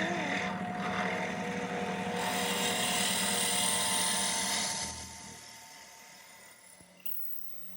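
Drill press running with its bit boring into a wooden blank, a steady motor hum with a hissing cut that is loudest in the middle, then the motor is switched off and winds down over the last few seconds.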